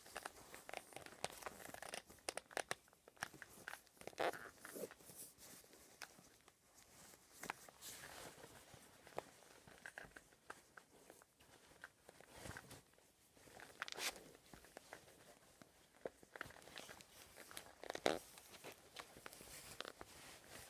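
Faint rustling of trouser fabric and scuffs and creaks of sneakers shifting on a wooden parquet floor, with a few sharper clicks scattered through.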